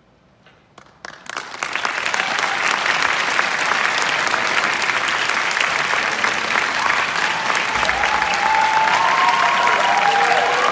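Audience applause: a few scattered claps, then full clapping from about a second and a half in, holding steady, with a few voices calling out over it near the end.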